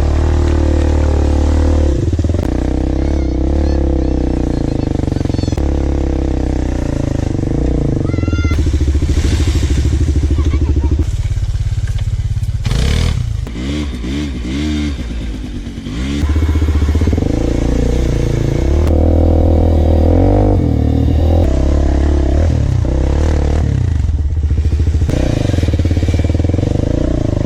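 Quad bike (ATV) engine running and revving up and down over and over, the pitch rising and falling, with a brief drop in revs around the middle.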